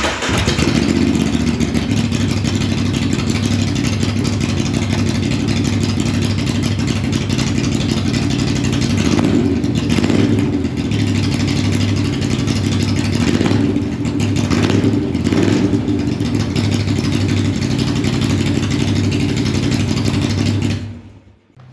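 A 2021 Moto Guzzi V7's air-cooled 853 cc transverse V-twin running with its muffler removed, exhaust open at the header pipe. It idles steadily, is blipped with the throttle about five times between nine and sixteen seconds in, and is switched off near the end.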